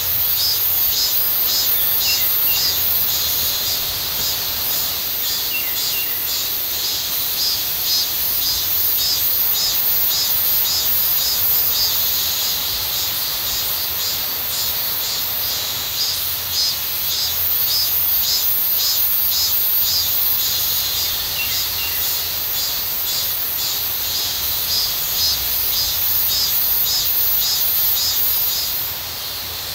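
Summer grass insects chirping in a dense chorus of fast, pulsing trills, with a few short bird chirps now and then. The chorus drops away just before the end.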